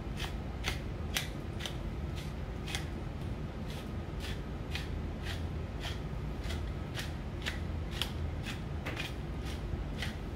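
Pepper mill grinding black pepper over raw fish fillets: a steady run of short, crisp grinding strokes, about two a second.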